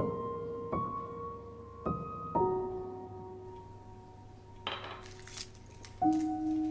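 Slow, soft piano score, single sustained notes struck one after another about once a second, a fresh note about six seconds in. A brief metallic jingle of keys about five seconds in.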